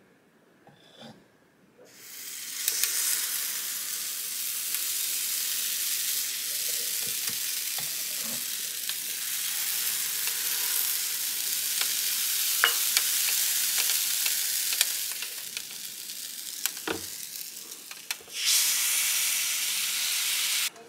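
Waffle batter sizzling on the hot plates of an electric heart-shaped waffle iron. The steady hiss starts about two seconds in and eases off, then surges louder near the end.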